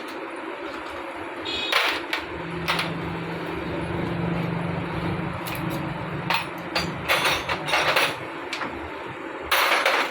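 Metal hand tools clanking and scraping against a motorcycle engine's clutch cover as its bolts are undone and the cover is worked loose. The clanks come in irregular bursts, with a low steady hum underneath through the middle.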